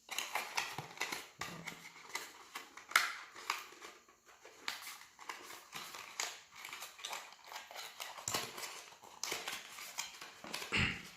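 Paper leaflets and cardboard phone packaging being handled: irregular rustles, taps and clicks, with one sharper click about three seconds in.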